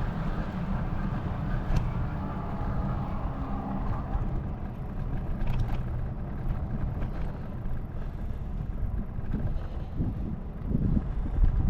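Wind buffeting the microphone in a steady low rumble, swelling near the end.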